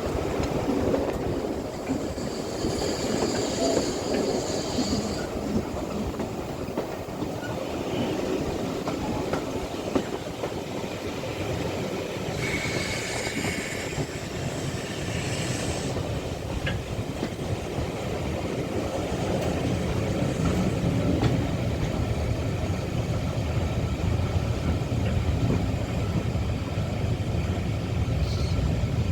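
A steam-hauled passenger train pulling slowly into a station, its coaches rolling over the rail joints. High-pitched squeals come about three seconds in and again from about twelve to sixteen seconds in, and a low rumble builds in the second half.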